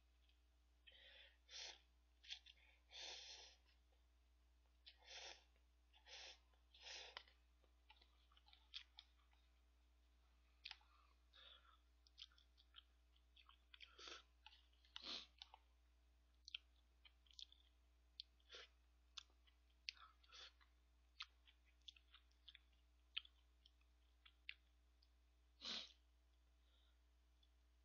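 Quiet eating sounds close to the microphone: short breaths and slurps as noodles are lifted to the mouth, chewing, and many small clicks from the mouth and the wooden chopsticks against the paper cup.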